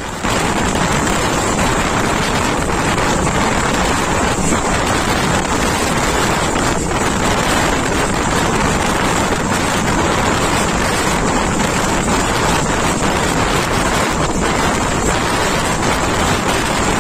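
Steady wind buffeting the microphone, held out of a moving passenger train, over the train's running noise on the track.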